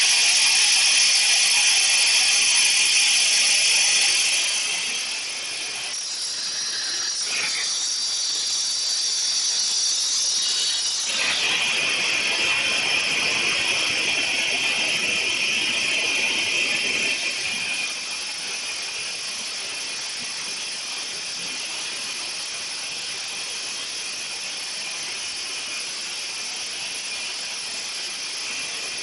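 Industrial press machinery running: a steady mechanical hiss with a high whine. It drops in level a few seconds in and again later, where the machine's running sound changes.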